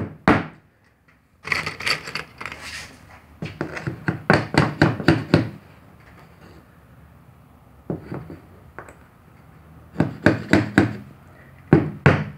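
Hammer tapping nails into a wooden work board, in quick runs of light strikes with short pauses, to hold a metal edging strip tight against a stained glass panel.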